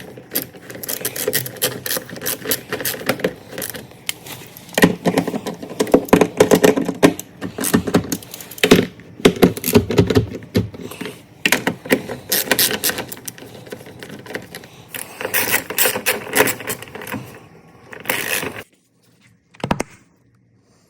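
Engine cover and its fasteners being refitted and tightened: quick runs of clicking and rattling with scraping of plastic and tools, stopping suddenly a couple of seconds before the end, then one last click.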